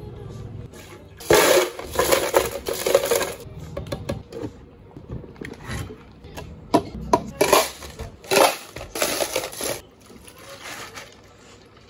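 Drink-making sounds at a cafe counter. Liquid is poured into a plastic blender jug, then come several noisy bursts of about two seconds each, with smaller clinks between. Near the end a chocolate milk drink is poured from a measuring jug over ice in plastic cups.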